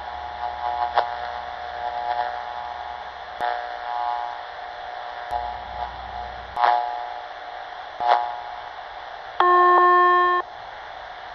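Drive-thru headset radio channel heard through a scanner: steady radio hiss with a few faint short blips. Near the end comes a loud, steady electronic beep about a second long that cuts off sharply, the alert tone that comes before the attendant greets the next car.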